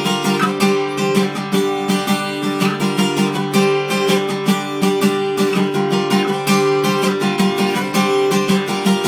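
Acoustic guitar strummed in a steady, even rhythm, chords ringing on through an instrumental passage without singing.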